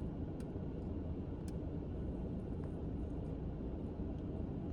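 Steady low rumble with no speech, with a few faint clicks or taps about half a second, a second and a half and two and a half seconds in.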